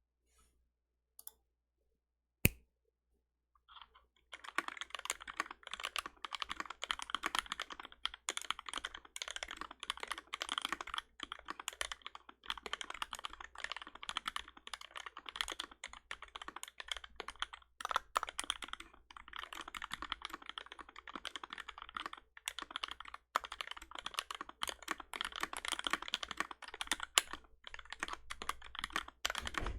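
Mechanical keyboard with Seal switches lubed with 205g0 and fitted with switch films, in an NK65 EE case with GMK keycaps. There are a few single key clicks, one of them sharp about two and a half seconds in, then fast continuous typing from about four seconds in.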